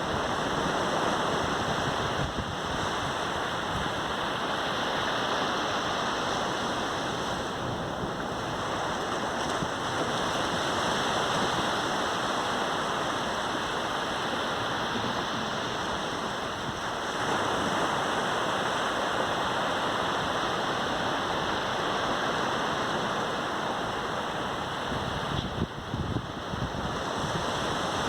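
Sea waves breaking and washing up on a beach: a steady surf hiss that swells and eases as the waves come in.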